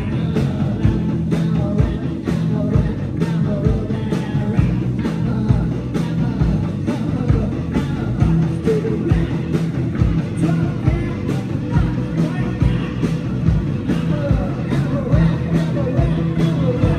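Rock band playing live: a steady drum beat under bass and electric guitar.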